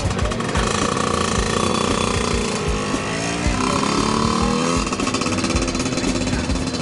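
Small motorcycle engine running, revving up and rising in pitch about halfway through as it accelerates.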